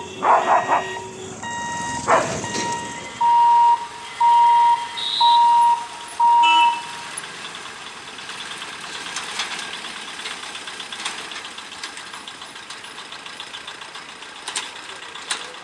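Electronic warning beeper: a steady high tone breaks into four loud, even beeps about a second apart. Two loud noisy bursts come in the first couple of seconds, and a low steady outdoor background follows the beeps.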